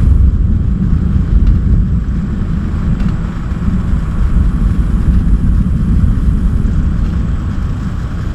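Storm wind buffeting the microphone: a loud, steady low rumble that wavers throughout, with a fainter hiss above it.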